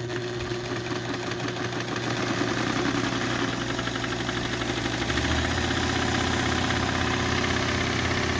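Vintage Brother sewing machine's electric motor running under the foot pedal, the mechanism turning over with a fast, even clatter; it gets a little louder about five seconds in. The newly rewired machine runs.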